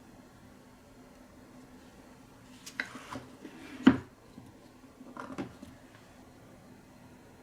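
Marbles clicking and knocking on a wooden marble run: a short run of clicks about three seconds in, one louder knock about a second later, then a quick patter of light clicks.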